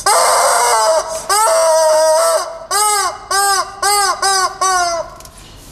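Rubber squawking chicken toy squeezed by hand, giving two long shrill shrieks and then five short squawks, each rising and falling in pitch.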